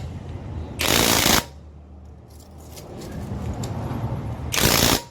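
Cordless impact wrench hammering in two short bursts, about half a second each, about a second in and again near the end. It is failing to break a truck's lug nuts loose because it lacks the torque.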